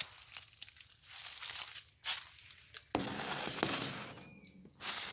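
Irregular rustling and crunching noises, with a sharp knock about three seconds in followed by louder scraping rustle.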